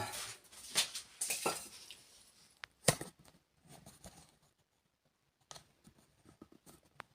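Handling noises of a small refrigerator and its packaging being moved and turned around: scattered rustles and light clicks, with one sharp knock about three seconds in.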